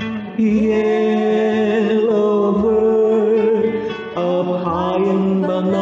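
A slow song: a voice singing a drawn-out melody over acoustic guitar, entering about half a second in.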